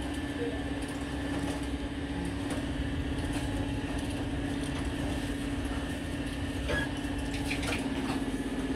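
Light clicks and clinks of small metal screws and plastic switch bases handled and fitted by hand, a few of them near the end, over a steady machine hum.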